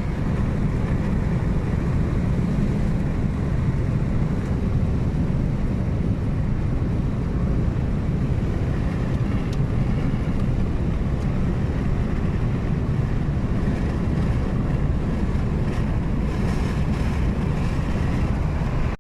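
Wind buffeting the microphone: a steady, heavy rumbling noise with no clear tone in it.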